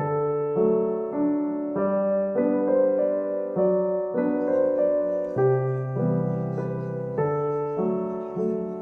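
Background music: a gentle piano melody with chords, notes changing about every half second.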